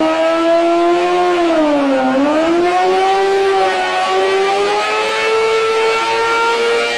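Sport motorcycle engine held at high revs while its rear tyre spins in a burnout. The pitch sags about two seconds in, then climbs and holds high and steady.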